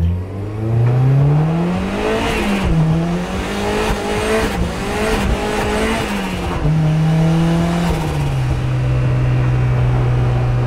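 Turbocharged Mazda MX-5 Miata 1.6 four-cylinder engine under hard acceleration: its pitch climbs for about two seconds, drops and climbs again with a rushing noise in the middle, then eases back and holds a steady lower pitch near the end.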